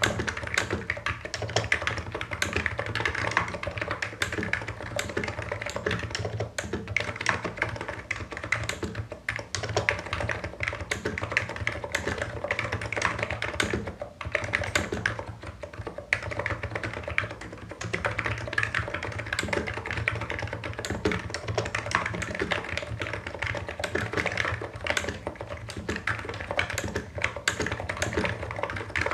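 Continuous typing on a Hansung Office Master full-size electro-capacitive keyboard with low Cherry-profile keycaps: a rapid stream of keystrokes with a few short pauses.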